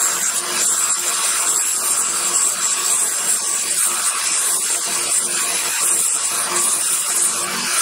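Belt sander grinding a steel cold chisel held against the running abrasive belt: a steady, high grinding noise of metal on the belt.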